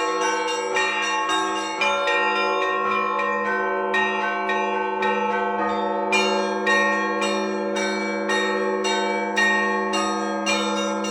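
Russian Orthodox church bells rung together: smaller bells struck in a quick repeating pattern, about two strokes a second, over the steady hum of the larger bells.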